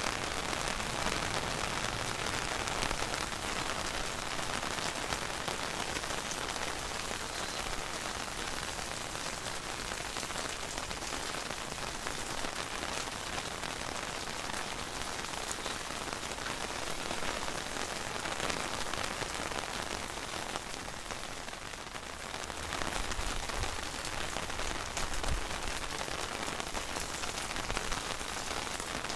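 Steady rain falling and pattering on surfaces, a dense hiss of many small drops, with a deeper rumble added from about two-thirds of the way through.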